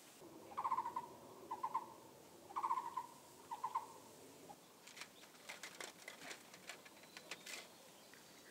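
A bird calling: four short rattling notes at one pitch, in two pairs, each pair a louder note then a softer one. From about five seconds in, a run of light clicks and taps follows.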